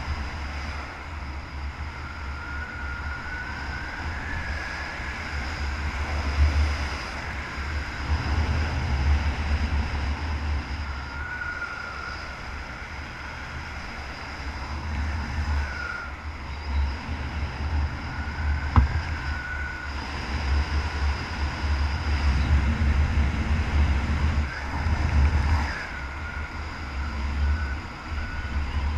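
Wind buffeting the microphone of a skydiver's camera during descent: a rumbling, gusting wind noise that swells and fades, with a thin wavering whistle that comes and goes.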